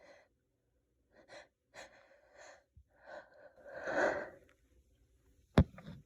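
A person's gasping, hitching inhales building toward a sneeze, with a louder breathy burst about four seconds in, then one short, sharp stifled sneeze near the end.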